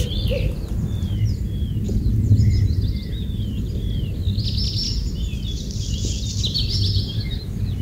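Small birds chirping and twittering in short, repeated calls over a steady low background rumble, with a denser run of high twittering from about four to seven seconds in.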